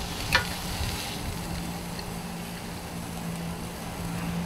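Meat cooking on a tabletop grill: a faint steady hiss over a steady low hum, with one sharp metal click about a third of a second in as tongs touch the grill.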